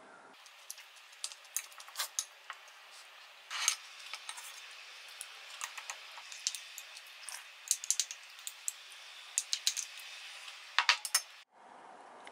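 Spoon clinking and scraping against a ceramic bowl and plate while eating, in a quick, irregular scatter of small clicks, with a louder cluster near the end.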